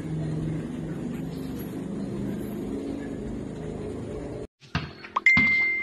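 Steady low rumble with a faint hum. It cuts off suddenly about four and a half seconds in, followed by a few sharp knocks and a short high beep.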